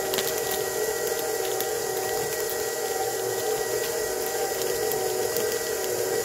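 KitchenAid Professional 600 stand mixer running steadily with a constant motor whine, its wire whisk beating buttercream in the steel bowl as powdered sugar is added a little at a time.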